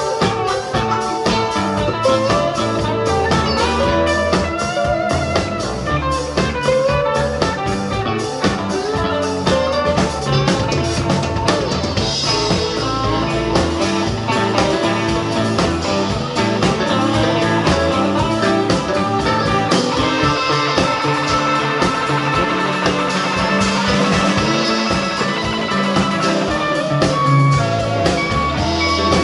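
Live band playing an instrumental blues-rock passage: electric guitars and electric bass over a drum kit, with keyboard and saxophone.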